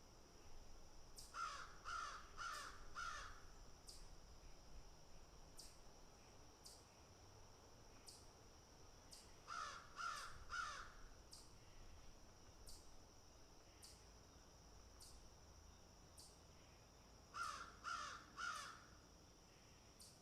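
A crow cawing in three bouts: four harsh caws a second or so in, three more about halfway, and three near the end. A steady high-pitched tone and faint ticks about once a second run underneath.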